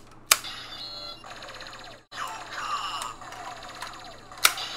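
Two sharp plastic clicks as Gaia Memories are pushed into the slots of a CSM Kamen Rider W Double Driver toy belt: one about a third of a second in, one near the end. Between them the toy plays electronic sound effects with gliding tones.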